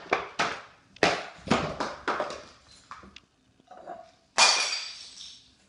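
Household items pushed off the top of a fridge, with a run of knocks and rustles, then a louder noisy burst about four and a half seconds in that fades over about a second.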